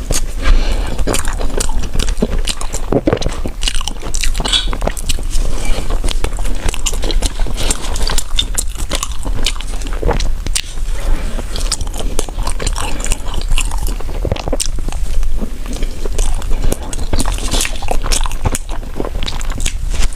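Close-miked mouth sounds of someone biting and chewing bread: many short, irregular clicks and light crunches, over a low steady hum.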